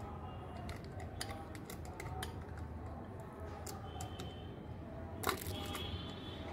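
Silicone spatula scraping and tapping against a glass bowl as thick melted white chocolate is scraped out: scattered light clicks and short scrapes, with one sharper knock about five seconds in, over a low steady hum.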